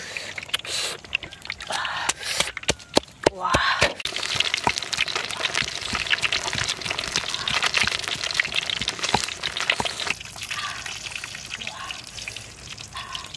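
Water splashing and dripping over a raw fish on wet stone, a dense wet crackle full of small clicks that eases off after about ten seconds. The first few seconds hold sharp clicks and short mouth sounds.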